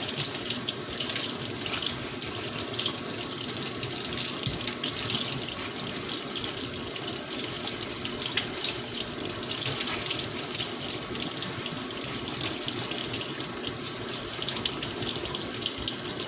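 Kitchen tap running steadily into a sink while raw potatoes are scrubbed clean under the stream.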